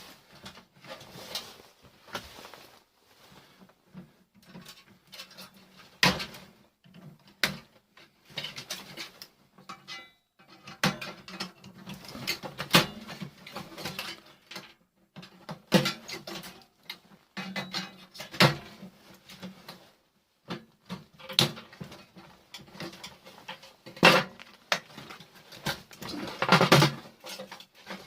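Irregular clinks, clicks and knocks of small metal parts and hand tools as a microwave oven is taken apart by hand, with several louder knocks scattered through.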